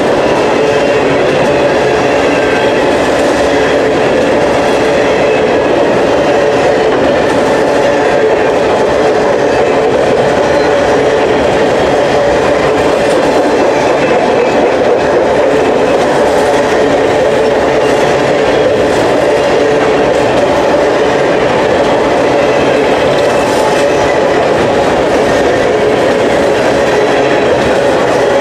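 Empty sulphur cars of a freight train rolling past at slow speed: a steady, loud rumble of steel wheels on the rails, with a faint steady ringing tone above it.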